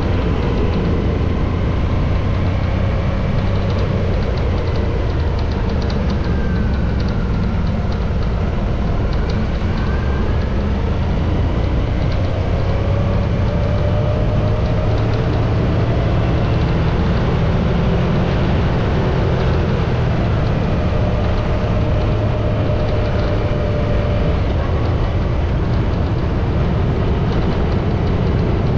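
Motorcycle on the move: a steady low rumble, with the engine note faintly rising and falling as the revs change.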